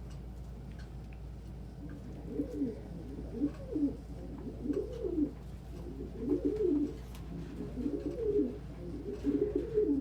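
A domestic pigeon cooing: a string of low, warbling coos, one after another, starting about two seconds in.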